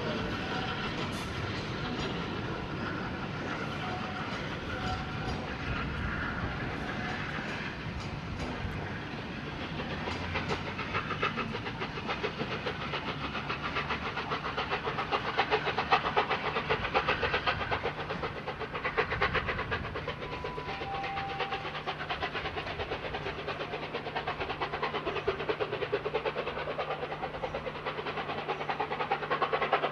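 Steam-hauled train pulling out, led by 71000 Duke of Gloucester, a BR Standard Class 8 three-cylinder Pacific. The coaches roll past with their wheels clattering rapidly over the rail joints and the locomotive's steam exhaust beating. It gets louder about halfway through.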